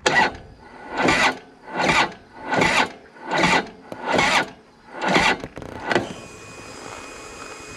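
Harley-Davidson Road King's starter cranking its V-twin in seven heavy surges, a little under one a second, without the engine catching, then stopping about six seconds in and leaving a faint steady whine. The weak battery cannot turn the engine over fast enough to start it.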